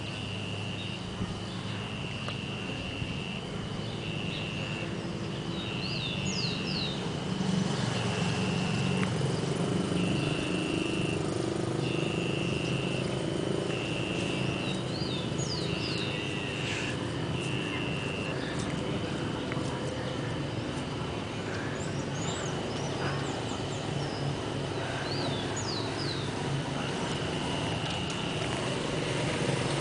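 Outdoor ambience: a high, even tone pulsing on and off about once a second, several groups of two or three quick rising bird chirps, and a low rumble of street traffic underneath.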